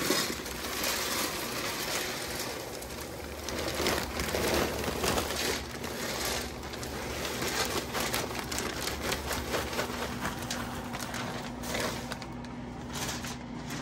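Wood pellets pouring from a bag into a pellet smoker's metal hopper: a dense pattering rattle of pellets, with the bag crinkling. It thins out and stops near the end as the hopper fills.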